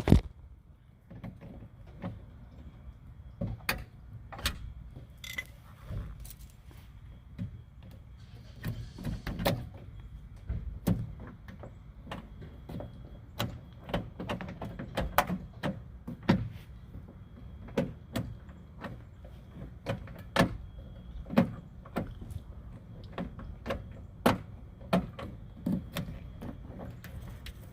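Irregular metallic clicks and knocks of a 1995 VW Golf's exterior door handle and the linkage bar inside the door being worked into place by hand.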